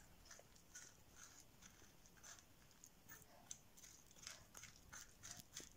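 Faint repeated scraping of a metal spoon scooping seeds and stringy pulp out of a halved butternut squash, the strokes coming quicker and a little louder near the end.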